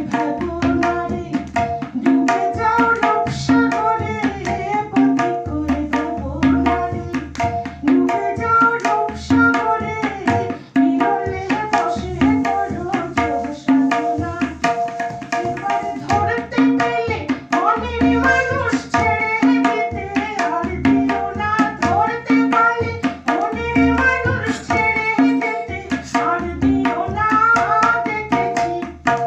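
A woman singing a Bengali song into a microphone, accompanied by tabla keeping a steady rhythm and a held drone underneath.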